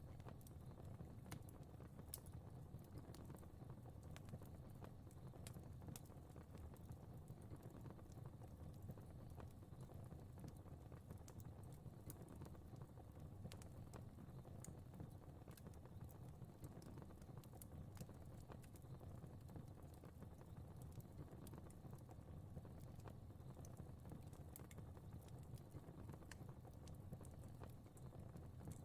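Fire crackling quietly: scattered, irregular sharp pops and snaps over a low, steady rumble of flames.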